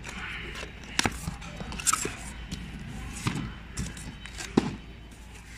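Cardboard carton flaps handled and folded open by hand: rustling with several sharp knocks of cardboard, about four of them spread through.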